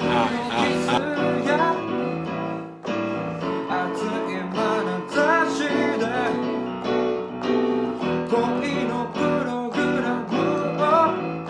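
Background music led by keyboard, with a melody over steady held notes.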